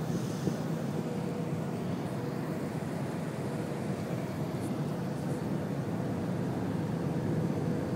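Steady jet airliner cabin noise on approach for landing: a low, even rumble of the engines and airflow with a faint steady hum.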